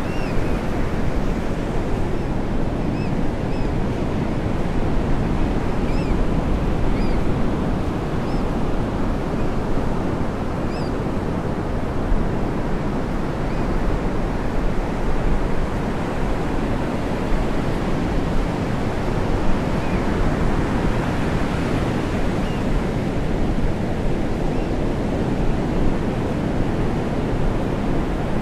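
Ocean surf breaking and washing in: a steady, unbroken rush of waves.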